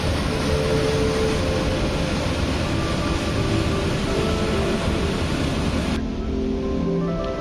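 Water rushing out of two open dam spillway gates: a steady, loud roar of churning water. About six seconds in the roar cuts away to a quieter, duller sound with soft music.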